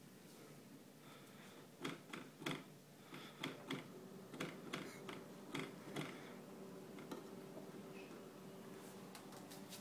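About a dozen light taps and clicks on a refrigerator front, coming irregularly over a few seconds, then one more a little later, over a faint steady hum.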